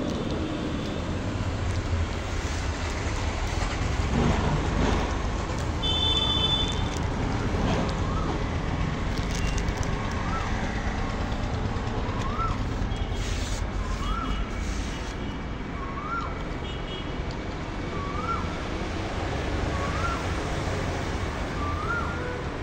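Steady rumble of street traffic. From about a third of the way in, a short chirp that rises and falls repeats about every two seconds.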